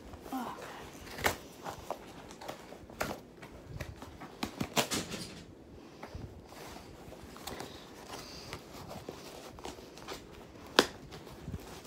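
Cardboard shipping box being worked open by hand: scattered taps, scrapes and clicks of packaging being handled, with a flurry about four seconds in and one sharp click near the end.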